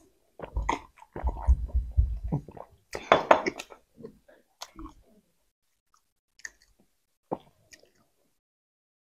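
Close-miked chewing of soft, sugar-dusted filled doughnuts: wet squishing mouth sounds in dense clusters for the first few seconds, then only a few isolated smacks.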